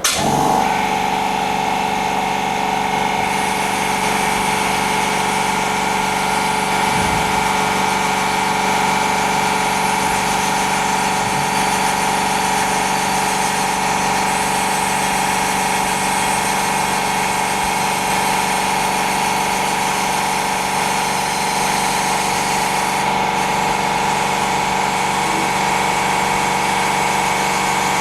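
Small electric motor of a glue-removing tool running steadily at constant speed as old adhesive is cleared from an OLED phone screen; it switches on just at the start.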